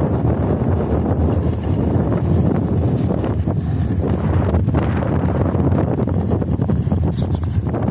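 Steady low rumble of a boat's engine under heavy wind buffeting on the microphone, with the wash of water.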